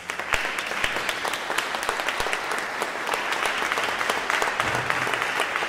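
Audience applauding, starting all at once and then holding steady.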